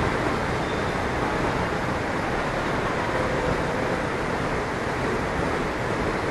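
Steady rushing ambient noise of a metro station, even and unbroken.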